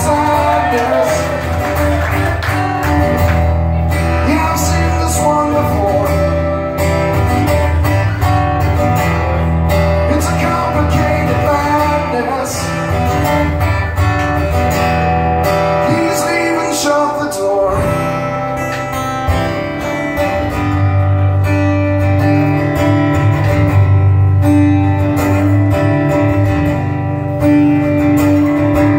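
Steel-string acoustic guitar played solo in a song's instrumental passage, chords ringing on over a changing bass line.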